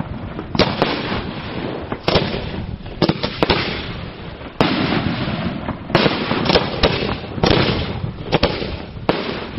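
Fireworks display: an irregular run of sharp bangs from bursting shells, about one or two a second, with unbroken noise between them.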